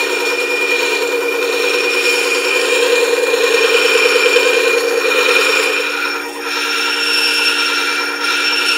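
Steel hand-plane chip breaker being ground on the spinning abrasive disc of a motorized sharpener, refining its edge. A steady motor whine runs under a grinding hiss and dips briefly twice near the end.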